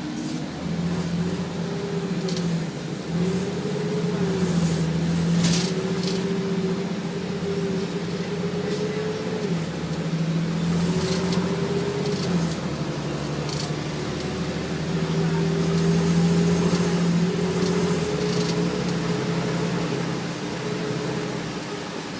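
Detroit Diesel Series 40 engine and Allison B400R automatic transmission of a 2000 Nova Bus LFS, heard from inside the bus as it drives, the engine pitch rising and falling back several times through acceleration and gear changes, with a few brief rattles.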